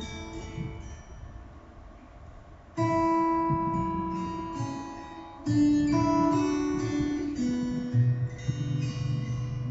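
Acoustic guitar music played from a CD. Chords ring and fade, with new chords struck about three seconds in and about five and a half seconds in, and a low bass note coming in near the end.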